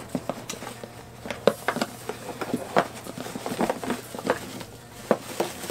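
Hands rummaging inside a cardboard box, with irregular crinkles, rustles and light taps of packaging as an item is dug out.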